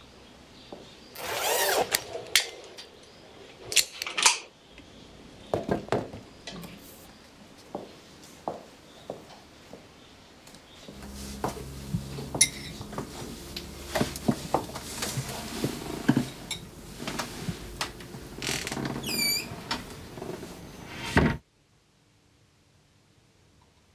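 Household handling sounds: scattered knocks, clicks and clinks, with a longer scraping or sliding noise early on. A steady low hum joins about halfway through, along with a few short high squeaks near the end. Everything cuts off abruptly a couple of seconds before the end, leaving near silence.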